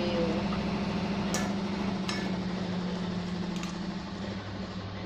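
A steady low mechanical hum, with a few light clicks of kitchen utensils and dishes while quail are being marinated by hand.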